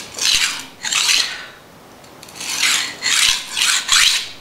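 A knife blade drawn across an oiled sharpening stone in about five swishing strokes: two close together, then a pause of about a second, then three more. These are light passes to take the burr off the edge.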